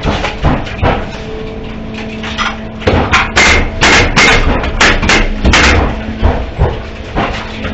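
Hammer blows on framing lumber: a run of sharp knocks, quickest and loudest from about three to six seconds in, over a steady low hum.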